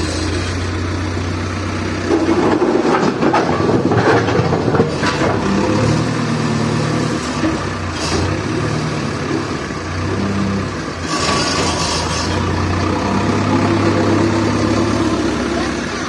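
JCB backhoe loader's diesel engine running and changing pitch as it works, with louder spells of rattle and scrape about two to five seconds in and again about eleven seconds in.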